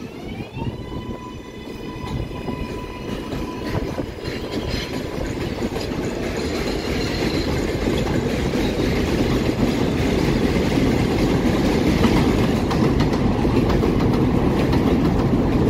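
R188 subway trains on an elevated line. A departing train's motors whine, rising in pitch and then holding steady before fading out about four seconds in. Then another train's wheel-on-rail rumble grows steadily louder as it comes in and runs past close by.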